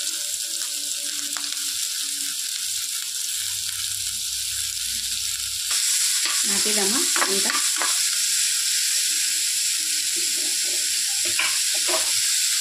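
Chopped onion, carrot, green chilli and capsicum sizzling in hot oil in a kadai, with a metal spatula stirring and scraping through them. The sizzle gets louder a little under six seconds in.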